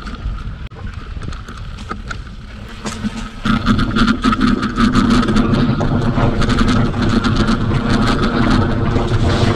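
Mountain bike riding fast down a dirt trail: tyre and trail noise with frequent rattles and clacks over bumps. About three and a half seconds in it gets louder, with a steady whirring hum on top.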